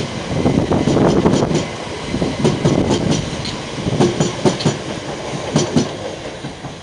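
Southern multiple-unit passenger train running past close by: a steady rumble with wheels clacking over rail joints in quick pairs as each carriage's bogies go by, fading near the end as the last carriage passes.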